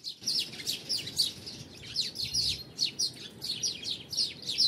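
European greenfinch singing: a rapid, unbroken twittering run of short high notes, each sweeping downward, several a second.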